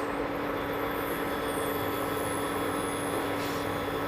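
Milk tea with tea leaves simmering in a pot on the stove: a steady bubbling rush over a constant hum.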